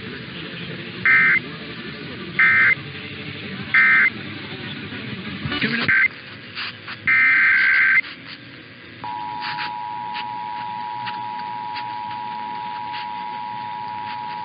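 Emergency Alert System data signals off the radio. Three short bursts of digital data tone come about 1.4 s apart, the end-of-message code that closes a test message. About 7 s in there is a longer data burst, and from about 9 s in the steady two-tone EAS attention signal sounds.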